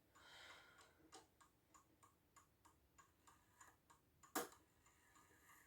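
Urgos Art Deco Westminster mantel clock's pendulum movement ticking faintly and evenly, about four ticks a second, with one louder knock about four seconds in.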